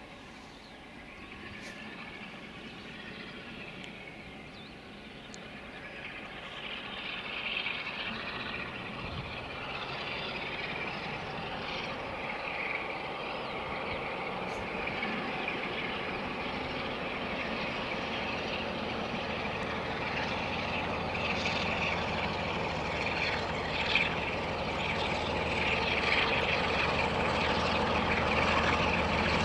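A Peak-type diesel locomotive's Sulzer engine working hard as it approaches with a train, its sound growing steadily louder, with one sharp knock near the end. Birds call faintly behind it at first.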